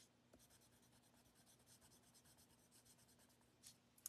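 Faint, rapid scratching of a colored pencil shading back and forth on cardstock, stopping near the end.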